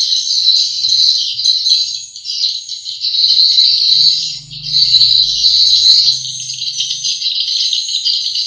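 Recorded swiftlet calls played loud through a swiftlet-house amplifier and tweeter: dense, continuous high chirping and twittering, used as a lure sound. A faint low hum runs under it around the middle.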